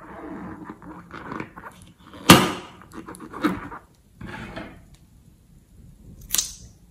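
A liquid-filled rubber balloon rubbed and turned in the hand, with a sharp click about two seconds in, then a single snip near the end as scissors cut through the balloon's neck.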